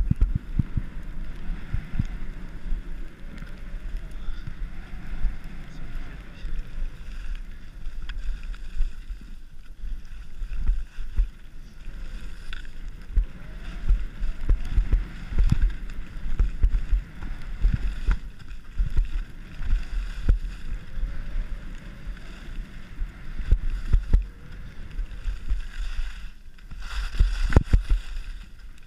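Skis running through deep fresh snow, heard close up: a steady swishing hiss under a constant low rumble with frequent short thumps, the kind of buffeting that wind and the run itself put on a body-worn microphone.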